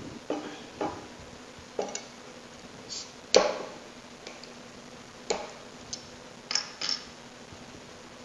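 A bottle opener worked onto the crown cap of a glass beer bottle and prising it off: a series of sharp metal-on-glass clicks and knocks, the loudest snap about three and a half seconds in. Further light knocks of the cap and bottle being set down on the wooden table follow.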